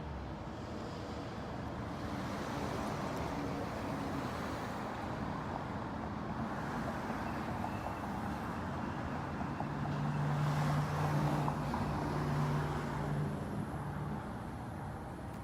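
Road traffic: a steady wash of vehicle noise, with one vehicle's engine hum growing louder about two-thirds of the way through and then easing off.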